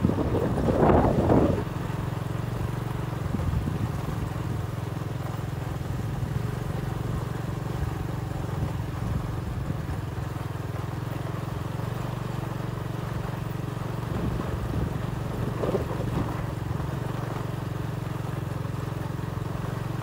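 Motorbike engine running steadily while riding along a rough dirt road, with louder bursts of rushing noise in the first second or so and again about sixteen seconds in.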